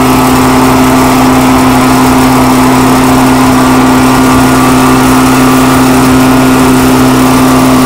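Loud steady running of an engine, a hum with a low, evenly pulsing beat, over the rushing of the preheating torch flame burning in the thermite-weld mould on the rail joint.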